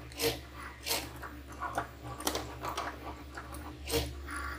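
Cricut Maker cutting machine running a cut on cardstock: a low steady motor hum with sharp ticks at irregular intervals as the carriage and blade move.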